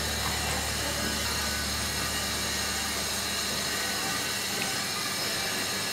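Steady low hum with an even hiss, like room tone; the hum drops away about three-quarters of the way through.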